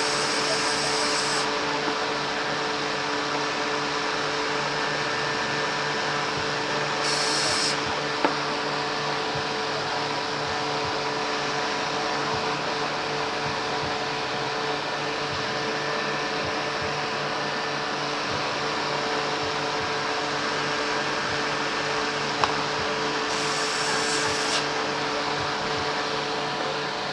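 Steady machine hum with a few fixed tones, like a fan or small motor, broken three times by short high hissing bursts about a second long, with two sharp clicks in between.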